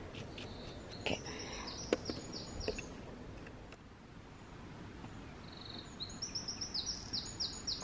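A small songbird singing: two phrases of quick, high notes that step downward, one about a second in and one starting with a short buzzy note past the middle, over a faint steady background hiss. A few faint clicks are heard in the first three seconds.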